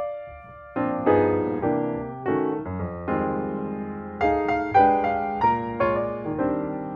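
Background piano music: chords and single notes struck one after another at an even pace, with a short lull just after the start.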